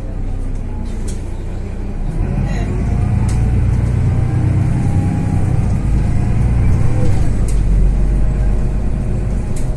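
Mercedes-Benz O530 Citaro city bus riding, heard from a seat over the gearbox: its diesel engine and ZF automatic transmission running under way. The drone gets louder about two seconds in as the bus pulls harder.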